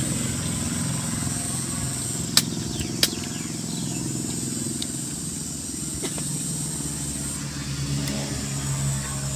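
Steady low engine drone, with a steady high insect buzz over it and two sharp clicks about half a second apart a couple of seconds in.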